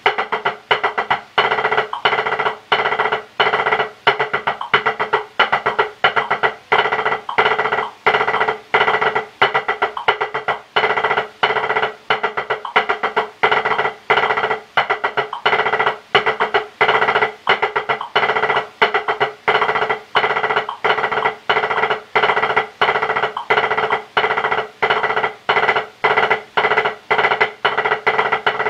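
Drumsticks playing a rubber drum practice pad in a fast, steady stream of strokes, with louder accented strokes about twice a second, as a marching-percussion audition exercise.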